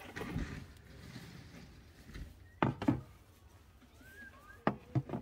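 Clothing rustling, then a handful of light knocks and clunks in two pairs as items are set down on wooden crate shelves.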